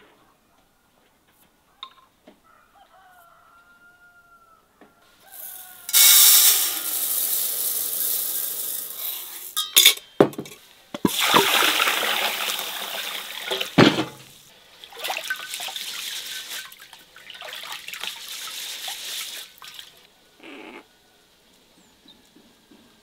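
Water pouring into a bowl of raw long-grain rice for rinsing, in three spells of a few seconds each with sharp knocks between them.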